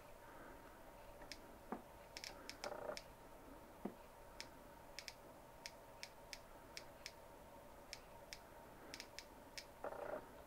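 Victoreen CD V-700 civil defense Geiger counter clicking through an added speaker: irregular sharp clicks, about two or three a second. The counts come from a red-tipped thoriated tungsten TIG welding rod, which is slightly radioactive. A few soft knocks from the metal rod and tube being handled.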